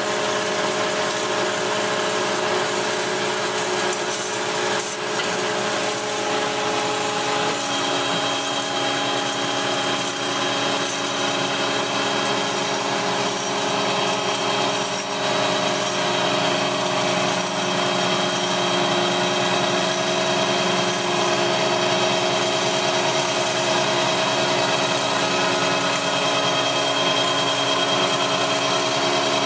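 Marvel 81A10 automatic-feed vertical bandsaw running under power on a test run: a steady machine whine made of several tones over a hiss. About eight seconds in the tones shift and a higher tone joins as the saw frame feeds down.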